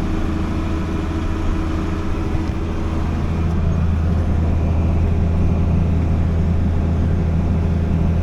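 Farm tractor engine running steadily under load while pulling a planter, a deep hum that grows slightly louder about three and a half seconds in.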